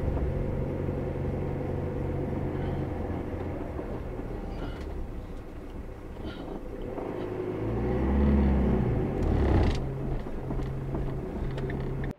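Steady engine rumble of a Pössl Roadcruiser camper van on the move, with road noise, growing louder for a couple of seconds near the end.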